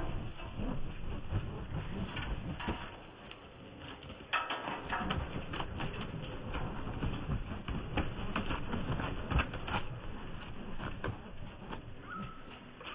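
White doves flapping their wings as they take off from and land on a windowsill: an irregular fluttering clatter of wingbeats, with a short call near the end.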